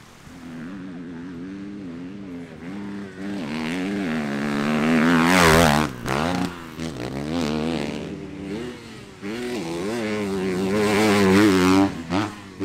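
Enduro racing motorcycle engines revving hard, the throttle rising and falling rapidly. The engines are loudest about five and a half seconds in and again near the end, each peak ending in a sudden drop.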